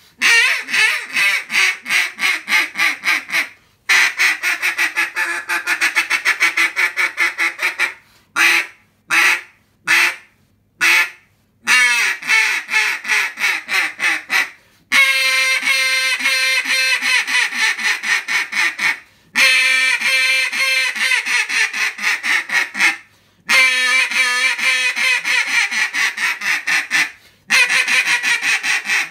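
Duck call blown by mouth, sounding runs of quick quacks, about five a second, broken by short pauses, with a few single spaced quacks about eight to eleven seconds in.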